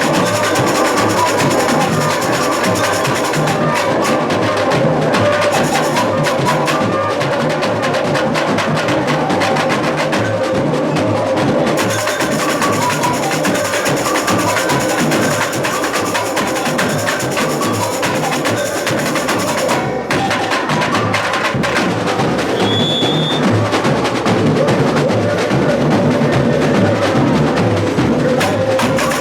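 Samba school drum section (bateria) playing a dense, driving samba rhythm on many drums and hand percussion.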